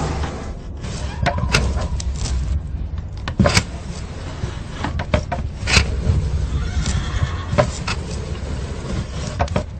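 Horses moving about, their hooves knocking irregularly over a steady low rumble.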